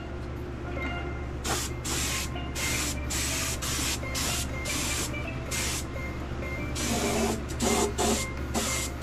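Compressed-air spray gun hissing in short trigger bursts, about two a second, as it sprays Awlgrip 545 gray primer onto aluminum davit parts. A steady low hum runs underneath.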